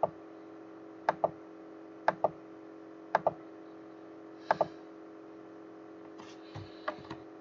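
Computer mouse button clicking about once a second, five times, each click a quick double tick of press and release, over a steady low hum. A few softer faint handling sounds follow near the end.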